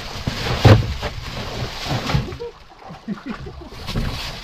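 A hand rummaging in a plastic bag of squid bait packed on ice inside a styrofoam cooler: rustling and crinkling, with one sharp knock about a second in.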